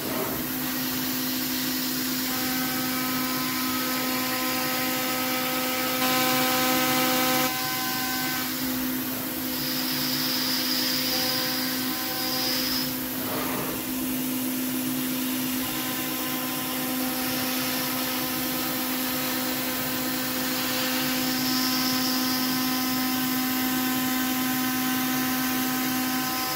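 CNC router spindle running steadily while a 6 mm chamfer tool cuts a 0.4 mm chamfer on a 6061 aluminium part, with the hiss of the mist coolant spray. Higher cutting tones come and go over the steady spindle tone as the tool works around the part.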